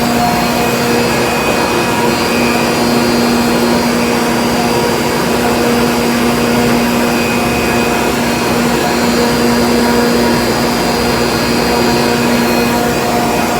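Ammonia refrigeration compressors running, three of them on at once: a loud, steady machine drone with a constant hum and a thin high whine over it.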